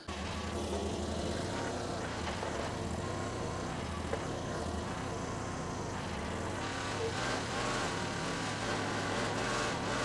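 A Chinese S400 mini skid steer's engine running steadily while the machine works a 710 lb pallet load at the forks. It gets a little louder in the last few seconds.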